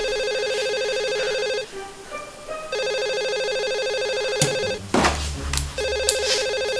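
Telephone ringing: three rings of about two seconds each, about a second apart. Between the second and third ring come a couple of short knocks.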